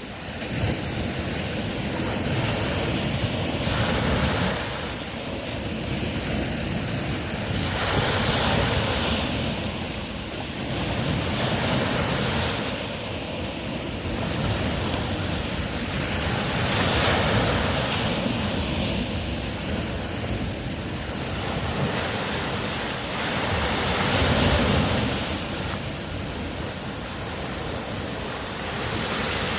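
Ocean waves washing in and drawing back, a steady surf noise that swells and fades every few seconds.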